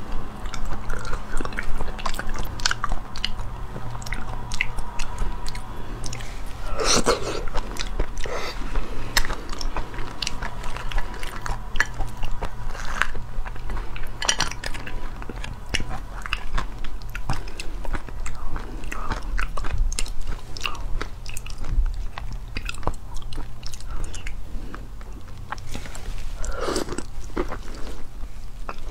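Close-up mouth sounds of eating raw Australian lobster: biting and chewing the meat, with many small wet clicks and crackles. A few louder crackling sounds come as the lobster's shell is pulled apart by hand. A steady low hum sits underneath.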